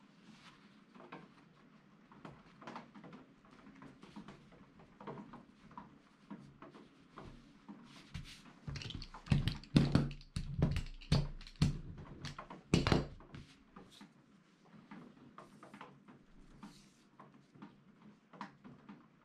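Fabric being handled and folded on a worktable, then a wooden-handled metal hand roller rolled and pressed back and forth over the fold, giving a run of sharp knocks and rumbles for several seconds in the middle.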